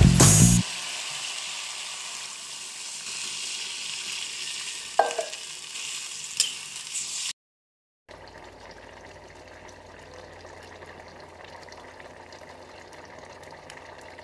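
Leafy greens sizzling as they are stir-fried in a wok over a wood fire, with a short louder sound about five seconds in. After a second's dropout, a quieter steady sizzle of fish and greens simmering in their liquid, with a low hum underneath.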